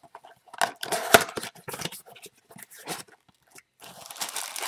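Cardboard card box being torn open by hand, with bursts of tearing and crinkling, the loudest about a second in and again near the end.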